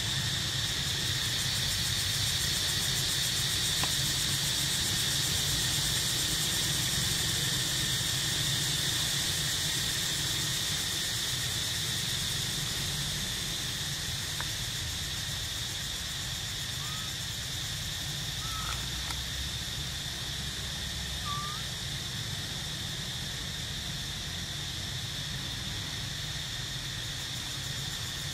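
Steady insect drone with a low rumble underneath, and a few faint short bird chirps in the second half.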